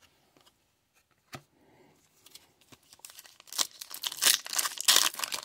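A few soft clicks, then the foil wrapper of an Upper Deck hockey card pack crinkling and tearing as it is ripped open, getting louder over the last two seconds.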